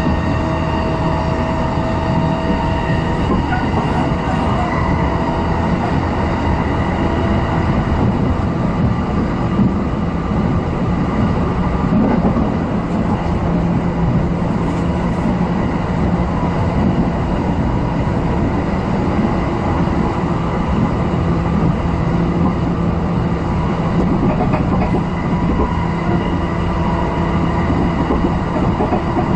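Running noise of a JR East electric commuter train at about 110 to 120 km/h, heard from inside the car: wheels on the rails making a steady rumble, with an even hum running through it.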